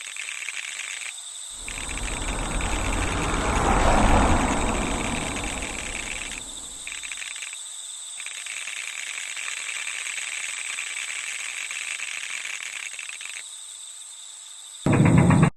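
Insects chirping steadily, dropping out briefly a few times, over a low rumble that swells to a peak about four seconds in and fades away by about seven seconds. A short loud burst comes just before the end.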